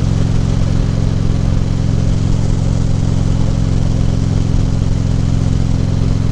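Harley-Davidson Ultra Classic Limited V-twin engine running at a steady speed while riding, with wind rushing over the helmet microphone.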